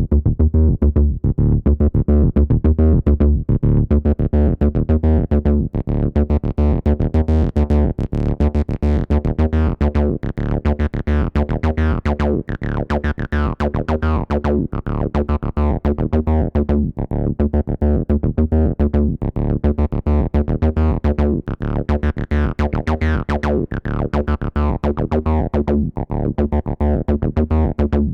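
Acid bassline from a Behringer TD-3, a TB-303-style bass synthesizer: a fast, steady sequence of short notes whose filter slowly opens brighter and closes again in waves.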